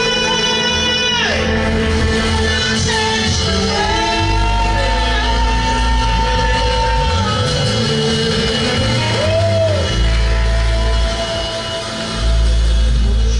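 Worship music: a voice singing long, sliding notes over deep sustained bass chords.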